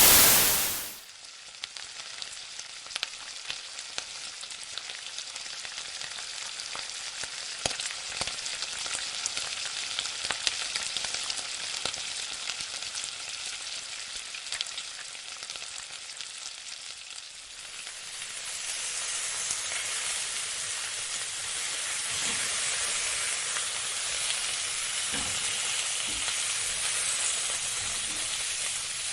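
Potato tikki frying in hot oil: a steady sizzle with scattered small crackles, growing louder about eighteen seconds in. It opens with a brief, loud rush of noise lasting about a second.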